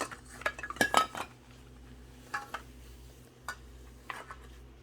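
Small hard plastic toy accessories clicking and clinking against each other as they are handled and packed into a toy diaper bag, with a quick cluster of louder clicks about a second in and a few scattered taps after.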